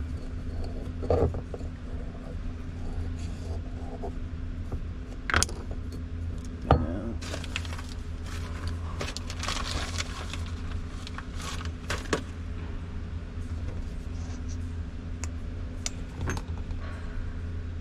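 Small metal pump parts and hand tools being handled on a workbench: scattered sharp clicks and knocks, the loudest about seven seconds in, with a stretch of rustling in the middle, over a steady low hum.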